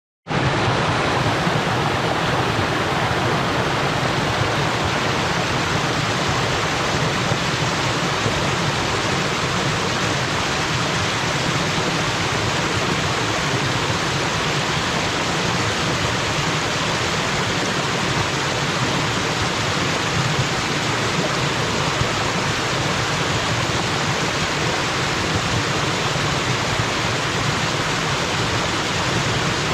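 Waterfall: water pouring and splashing down in a steady, unbroken rush, with a low rumble beneath.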